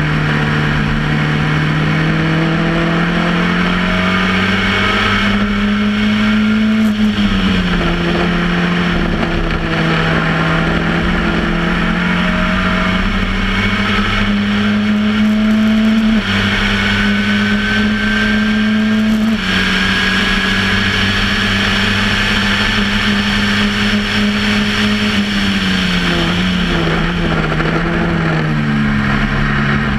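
Engine of a Reynard Formula Ford 1600 racing car, a 1.6-litre Ford Kent four-cylinder, heard on board at racing speed. The revs climb steadily, then drop sharply as the gears change up about 7 seconds in and again about 16 seconds in. Near the end the revs fall in a few steps as it brakes and changes down, then pick up again, with steady wind and tyre rush underneath.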